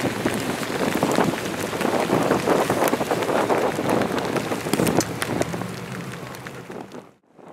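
Rain pattering close to the microphone in gusting wind: a dense spatter of drops. It thins out near the end and cuts out briefly just before the end.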